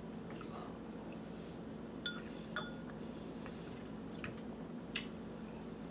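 A metal fork clinking lightly against ceramic bowls about six times. The two sharpest clinks, about two seconds in, ring briefly.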